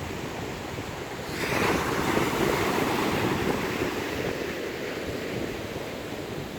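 Rough sea surf: a wave breaks a little over a second in and rushes and washes out over the next few seconds, with strong wind buffeting the microphone throughout.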